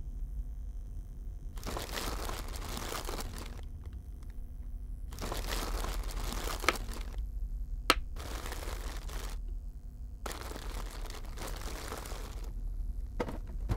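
Rustling and crinkling in four bursts of a second or two each, with two sharp clicks in the middle. A low hum runs underneath.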